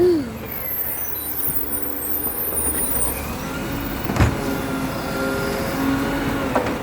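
Garbage truck running, with a drawn-out whining tone and a single sharp bang about four seconds in.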